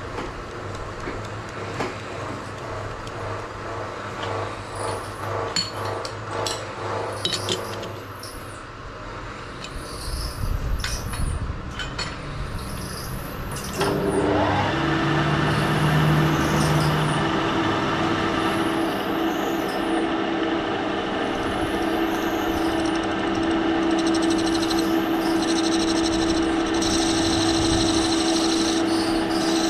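Metal-working lathe starting up about halfway through, then running steadily with a hum as it spins a wooden workpiece in its four-jaw chuck. Before that, lighter scraping and clicking while the chuck stands still.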